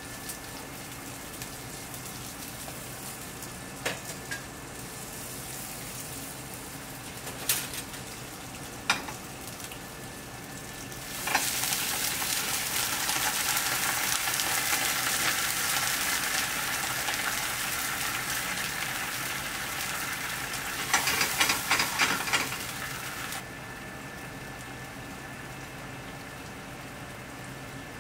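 Snap peas frying in olive oil in a steel pan: a loud sizzle starts about eleven seconds in, turns to sharp crackling near its end and then stops suddenly. Before the sizzle there is only a steady low hiss with a few light clicks.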